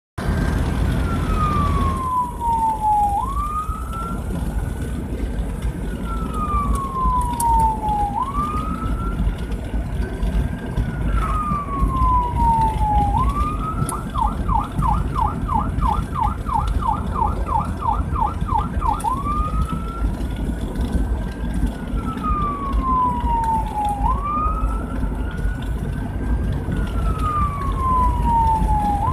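Emergency vehicle siren heard from inside the moving vehicle, running in wail mode, a slow rise and fall about every five seconds. About halfway through it switches to a fast yelp of about four sweeps a second for some five seconds, then goes back to the wail. Steady engine and road rumble runs underneath.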